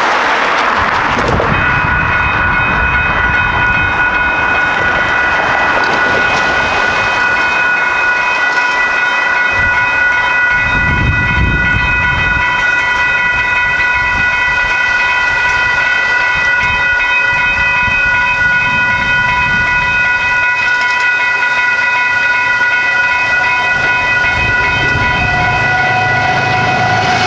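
Railroad grade-crossing warning bell starts ringing about a second and a half in and keeps ringing steadily as the crossing signals activate for an approaching train. Low road-traffic rumble passes underneath, and the rumble of the approaching train builds near the end.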